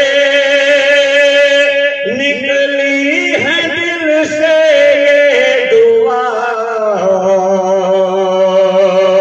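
A man singing a nazm (an Urdu poem) into a microphone, drawing the words out in long held notes with vibrato and slides between pitches.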